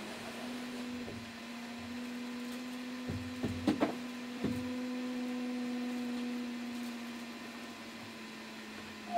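Stepper motors of a Flying Bear P902 3D printer, converted to a laser engraver, whining steadily as they drive the laser head through an engraving. The tone stops and restarts with each move. A few sharp clicks come between about three and four and a half seconds in.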